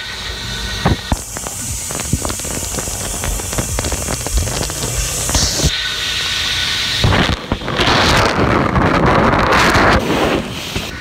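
Water spraying over a smartphone inside an opticwash cleaning machine, heard from inside the wet chamber: a crackling patter of droplets with a high hiss, then a louder steady rush of spray from about eight to ten seconds in.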